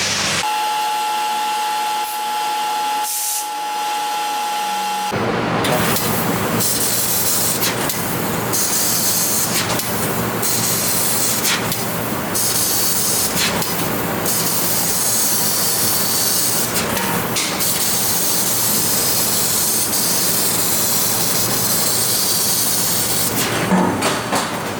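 6 kW fiber laser cutting 12 mm stainless steel: a loud, steady hiss of the cutting head's high-pressure assist gas, with brief breaks. For the first five seconds or so a steady high whine sits over it before the hiss takes over.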